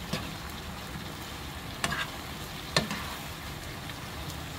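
Eggplant and carrot pieces sizzling in a frying pan over medium heat as they are stir-fried with a spoon, the spoon knocking sharply against the pan a few times, most clearly a little under two and about three seconds in.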